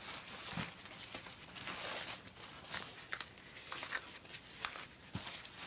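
Nylon hand grenade pouches being handled and shuffled on a table: irregular rustling and crinkling with scattered light clicks and taps.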